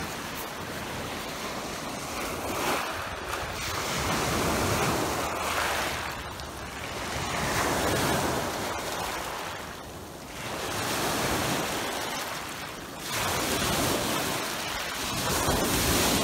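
Lake surf breaking and washing over a cobble beach, the rush of water swelling and easing about every three seconds, with some wind on the microphone.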